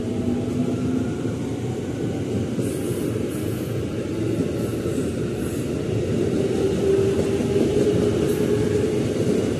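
Electric commuter train passing close by: a steady rumble of wheels on the rails, with a motor whine that grows louder in the last few seconds.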